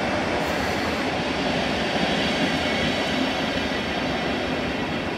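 PKP Intercity electric multiple unit rolling slowly past the platform, with steady wheel and running noise and faint high tones over it.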